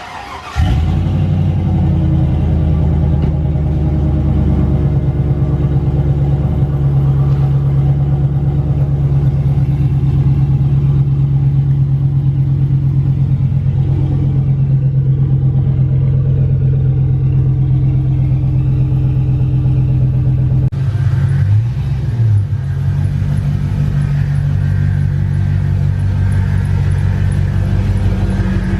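2002 GMC Yukon V8 with Spintech mufflers starting up and then idling with a steady, loud exhaust rumble. The note wavers briefly about three quarters of the way through.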